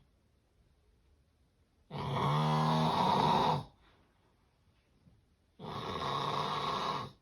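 Loud snoring, the kind the recording presents as severe sleep apnea: two long snores, one about two seconds in and one near the end. Each lasts about a second and a half, with quiet breathing pauses between them.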